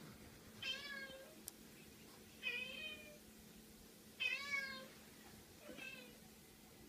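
Domestic cat meowing four times, short calls about every second and a half, each sliding slightly down in pitch; the third is the loudest and the last is faint. A single sharp click comes between the first two meows.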